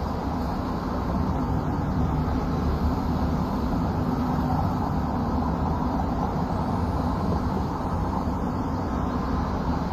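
Steady city street traffic ambience: an even, low rumble of vehicles with no single event standing out.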